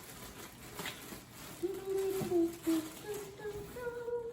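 A young baby's drawn-out cooing vocal sounds, pitched fairly high and ending on a higher note, after a few light handling clicks.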